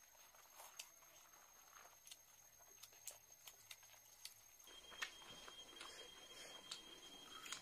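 Soft eating sounds: irregular small clicks and wet mouth noises from chewing, with hands working rice and chicken curry.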